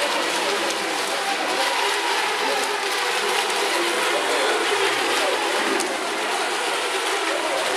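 Several ECO MINI class electric RC racing boats running together. Their motors whine at overlapping pitches that keep shifting, over a steady hiss.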